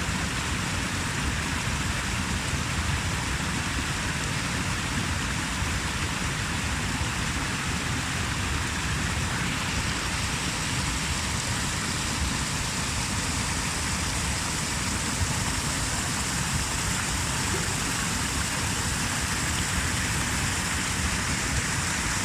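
Steady, even rush of water, unchanging throughout.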